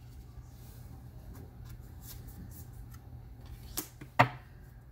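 Oracle cards handled on a wooden table: faint scattered ticks of cards being touched and slid, then two sharper taps near the end, over a steady low hum.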